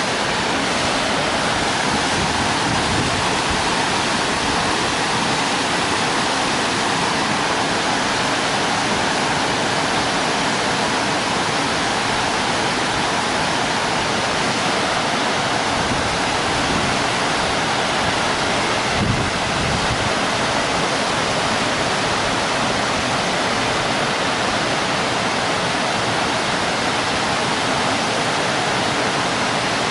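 Creek water rushing over a waterfall: a steady, loud, unbroken rush.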